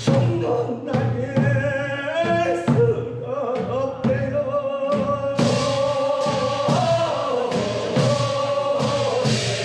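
Men's voices singing a Korean funeral bier song (sangyeo sori), a chorus of pallbearers holding long, slow notes, with regular strikes about once a second beneath the singing.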